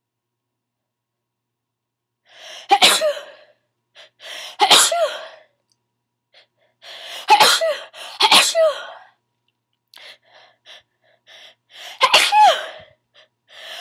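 A person's sneezing fit: five loud sneezes, each after a short gasping in-breath. They begin about two seconds in; the third and fourth come close together, and a pause of a few seconds comes before the fifth near the end.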